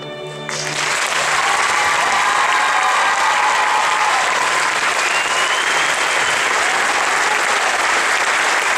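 Theatre audience applauding, breaking out about half a second in as a held sung chord ends, with a few voices cheering in the clapping.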